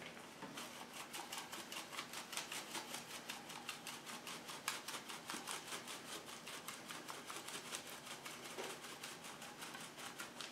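Black pepper being dispensed over the dressing from a pepper container: a rapid, even run of small clicks, about five a second.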